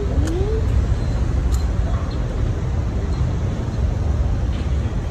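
Steady low outdoor rumble, with a brief rising voice near the start and a few faint clicks.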